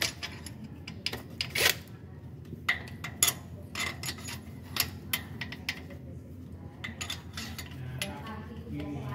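Irregular metallic clicks and clinks of steel bolts and a socket extension. The bolts are being set into the housing of a newly fitted engine balancer shaft assembly.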